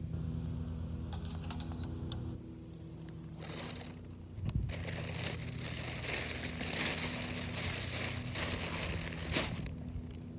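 Crinkling and rustling, dense from about four seconds in to near the end, over a steady low hum.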